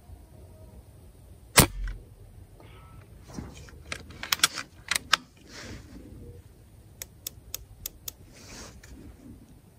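A moderated PCP air rifle fires once, about a second and a half in: a single sharp shot with a short ring after it as it sends a solid slug. Two clusters of light metallic clicks and rattles follow, the rifle being handled between shots.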